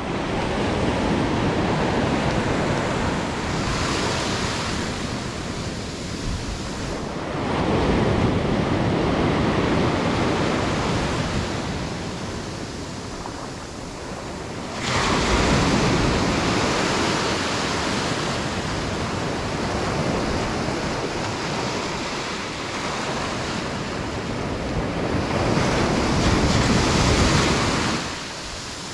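Ocean surf breaking and washing ashore in swells every several seconds, with wind on the microphone.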